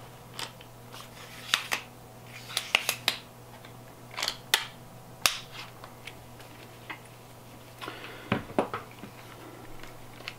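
Irregular sharp clicks and knocks of plastic and metal camera-mount parts being handled and fitted together: a DJI Osmo gimbal and its extension rod and clamp. The clicks come singly and in short clusters, with a quick run of them about three seconds in.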